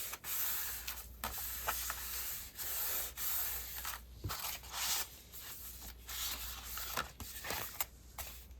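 Paper rubbing and rustling as hands smooth and press a freshly glued piece of paper flat onto a journal page, in short uneven strokes with a few light ticks.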